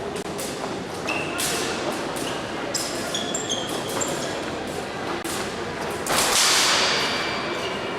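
Épée bout in a large hall: sharp clicks and knocks of blades and footwork, with several short high metallic pings. About six seconds in, a louder rush of noise rises and fades over about a second.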